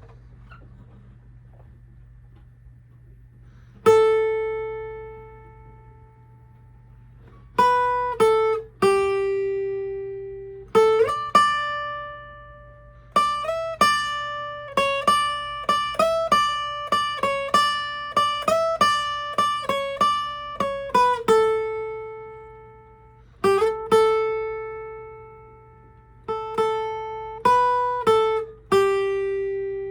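A guitar-like plucked melody of single notes, each struck and ringing away, some held for a couple of seconds and others in quick runs. It starts about four seconds in, after a faint steady hum.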